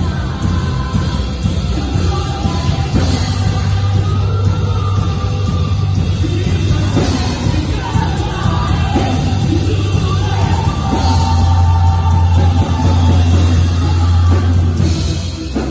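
Live church worship band playing a loud rock-style song with singing, a heavy sustained bass and cymbal crashes, in a large hall.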